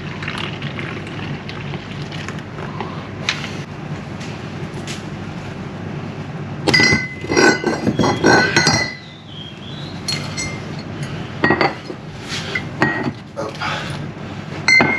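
Dishes, cutlery and glass clinking as they are handled, in a few clusters of sharp knocks with a brief ring, the busiest about seven to nine seconds in, over a steady background noise.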